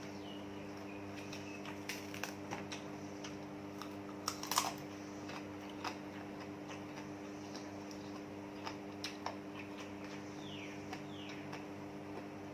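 Scattered light clicks and taps of kitchen utensils over a steady low hum, with a louder cluster of clicks about four and a half seconds in and two short falling chirps near the end.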